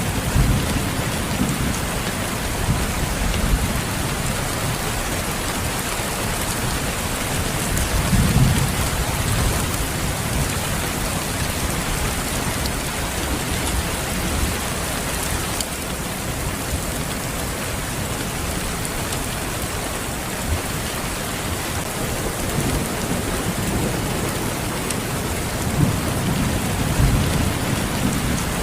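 Steady rain falling, an even hiss throughout, with low rumbles swelling briefly just after the start, about eight seconds in and again near the end.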